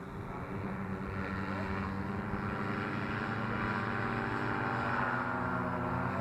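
Powered paraglider's engine and propeller running at high power on the take-off run, growing steadily louder as it comes nearer, with a slight drop in pitch near the end.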